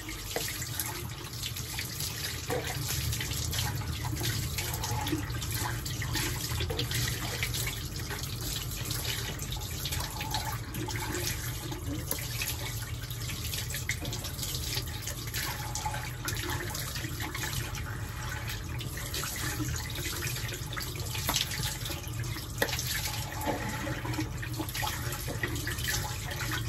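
Tap water running steadily into a sink while a foamy facial cleanser is rinsed off the face by hand, with irregular small splashes throughout.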